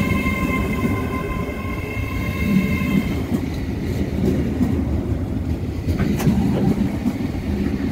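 Great Western Railway Class 800 bi-mode train moving past close by, with a steady low rumble from the wheels and carriages. A steady high whine stops about three seconds in, and a few sharp clicks come later.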